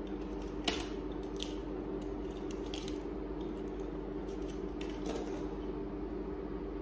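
A steady low hum, with a few brief soft rustles and clicks of hair being gathered and pinned up by hand.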